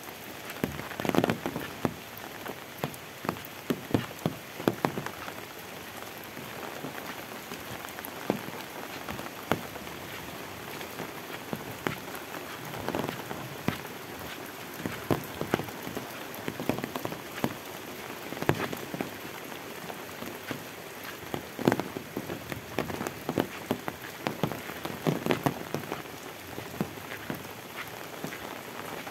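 Heavy rain falling steadily, with many irregular sharp taps of large drops landing close by.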